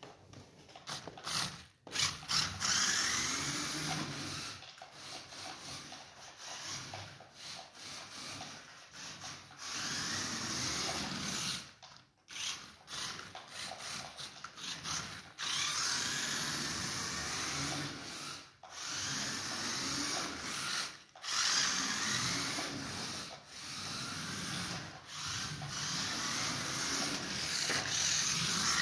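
Toy RC rock crawler's small electric motor and gearbox whining, rising and falling, with its tyres scrubbing on a smooth tile floor. The sound comes in bursts with brief stops as the throttle is worked.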